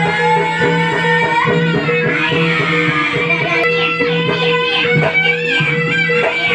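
Live jaranan accompaniment music: a sliding melody line over hand-drum strokes and steady held tones.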